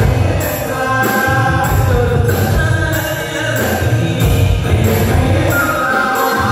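Live Malayalam folk song (nadan pattu): several singers singing together over loud drum beats and keyboard, played through a stage sound system.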